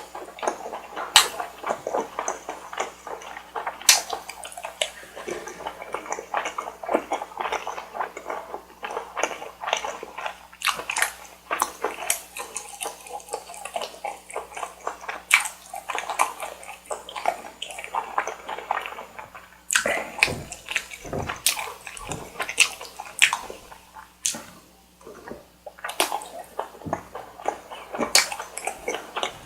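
Close-miked eating sounds of Carbonara Buldak stir-fried noodles and chewy bar rice cake: wet chewing, slurping and mouth smacks in an irregular, continuous run of sharp clicks.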